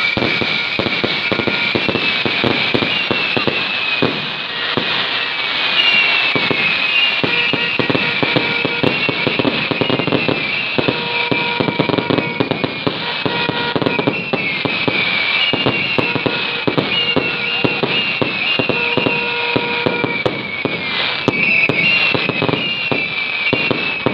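Aerial fireworks display: shells bursting overhead in a dense, continuous barrage of bangs and crackling.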